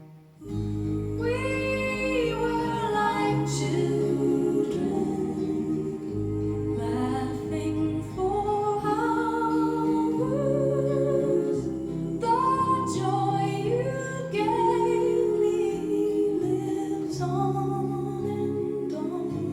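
Recorded music with a sung melody over sustained low accompaniment, played through a hi-fi system driven by a Meracus Onesta amplifier. The music enters about half a second in, after a brief dip.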